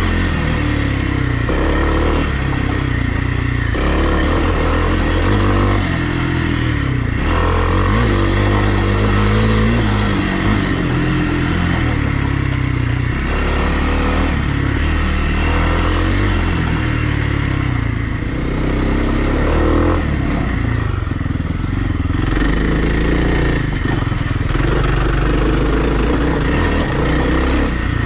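2020 Kawasaki KLX300R's single-cylinder four-stroke engine running hard, its pitch rising and falling over and over as the throttle is opened and closed.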